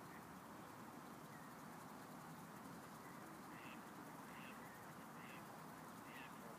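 Faint calls from a Canada goose family: short, high calls repeating about once a second from about halfway through, over a quiet steady background.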